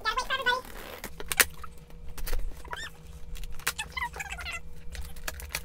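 Scissors cutting packing tape on a cardboard shipping box, and the box being handled: squeaky scraping of tape and cardboard with a couple of sharp clicks about a second in.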